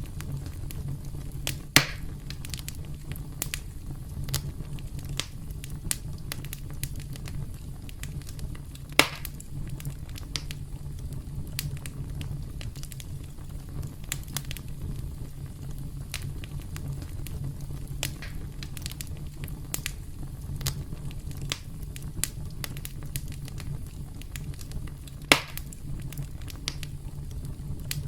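Campfire crackling: wood burning with a steady low rumble and a scatter of sharp snaps, three louder pops standing out about two, nine and twenty-five seconds in.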